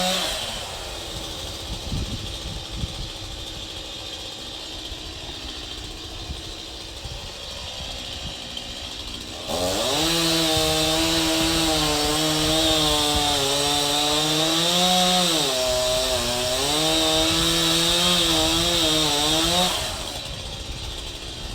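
Two-stroke chainsaw idling, then opened to full throttle about nine seconds in and run hard for about ten seconds, its pitch wavering and dipping as the chain bites into a dead tree, before dropping back to idle near the end.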